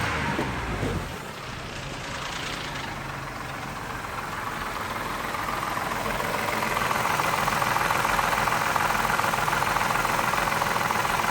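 2003 Mazda 6 3.0 V6 engine running with a rapid ticking knock, which the owner suspects is a bad lifter or a worn timing chain. It gets louder about halfway through.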